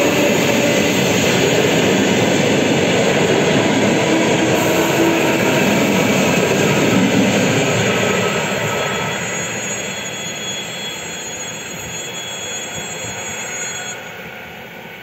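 EP2D electric multiple unit passing close by: a loud, steady rumble of wheels on rail until the last car goes by about eight seconds in, then fading as the train moves away, with a thin high whine lingering until near the end.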